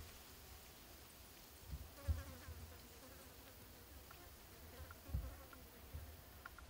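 Faint buzzing of a small flying insect near the microphone, with a few low thumps, the loudest about two seconds in and again about five seconds in.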